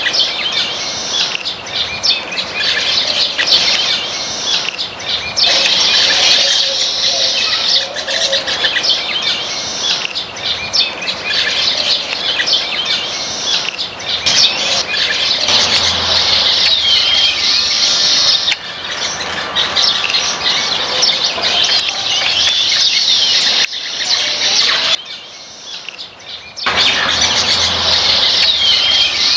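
A flock of baya weavers chirping, many high calls overlapping in a dense chatter, with a brief lull near the end.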